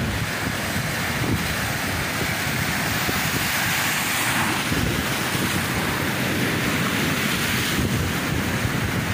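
Sea surf washing in and breaking into foam against a rocky ledge, the rush of water swelling a few seconds in. Wind rumbles on the microphone throughout.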